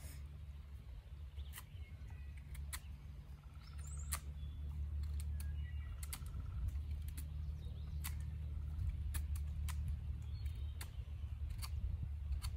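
A knife whittling a wooden dig stick: sharp, irregular clicks and scrapes of the blade on the wood over a steady low rumble, with a few faint bird chirps.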